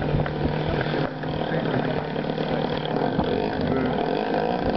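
A small single-engine propeller aerobatic plane's engine running steadily as it flies overhead, with people's voices mixed in.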